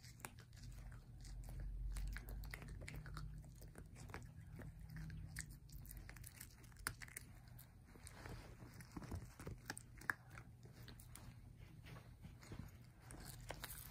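Australian Terrier puppy chewing on a plastic toothbrush: faint, irregular clicks and crunches of teeth on plastic.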